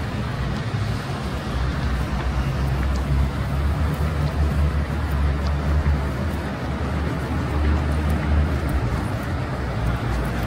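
Street traffic on a busy city avenue: a steady noise of passing cars with a low engine rumble throughout.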